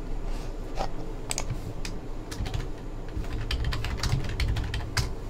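Typing on a computer keyboard: a few scattered key clicks, then a quick run of keystrokes from about two seconds in.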